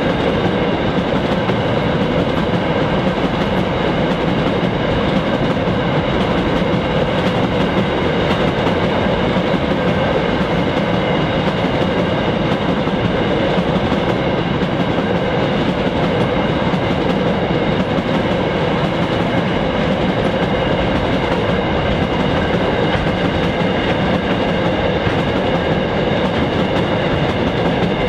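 Empty iron ore hopper wagons on a 3'6" narrow-gauge line rolling past, giving a steady wheel-on-rail noise with a faint steady high ring over it.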